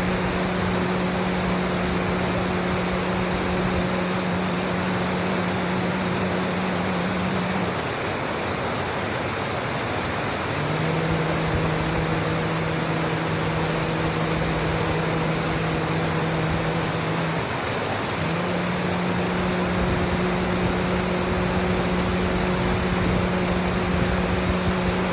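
A single voice toning one long, low, steady note around 165 Hz in three long held phrases, broken by short pauses for breath. Underneath is a steady rushing noise like wind or flowing water.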